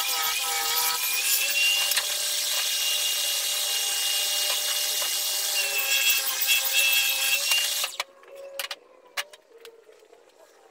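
Benchtop table saw running and cutting along a long wooden board, a loud whine with a steady tone through it. The noise stops abruptly about eight seconds in, leaving a faint tone and a few clicks.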